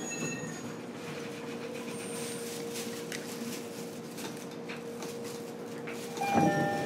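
Cabin sound of a JR East E129-series electric train stopped after braking: a steady electrical hum with a single held tone and scattered light clicks. About six seconds in, a sudden louder rush of noise sets in with a few short chime tones.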